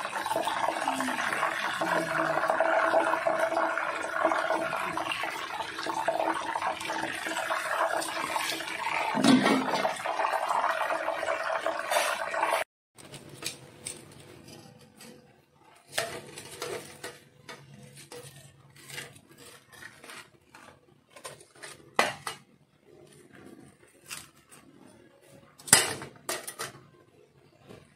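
A whole threadfin (ikan senangin) deep-frying in hot oil, a steady sizzle with metal tongs and spatula scraping and clinking against the pan, which cuts off suddenly about halfway through. After that, quieter handling sounds with scattered light clicks and knocks.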